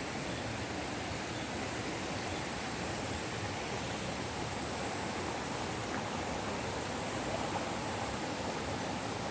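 Steady rushing of flowing water, like a stream, with a faint thin high hiss above it.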